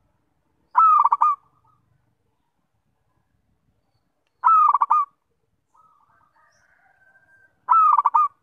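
Zebra dove (perkutut) cooing three times, a few seconds apart. Each call is a short phrase of rapid, stuttering coos, under a second long.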